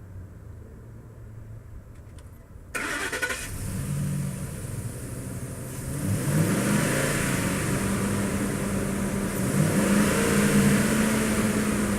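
2011 Ford F-350 pickup's V8 engine cranked by the starter and catching about three seconds in, then running and revved up twice, the pitch climbing each time.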